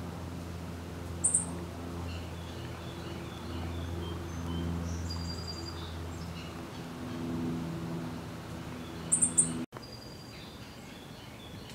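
Outdoor bird calls: faint high whistled notes, and two short, sharp high chirps about a second in and again near the end, over a steady low hum. The hum stops at an abrupt cut near the end, and the background goes quieter.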